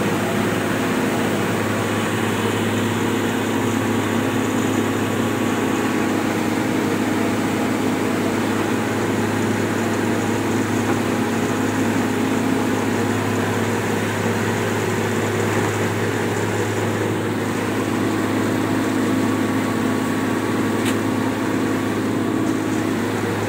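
Rice huller running steadily on its electric motor with a strong low hum, milling paddy into white rice. The rice is being fed through a second time to clean it.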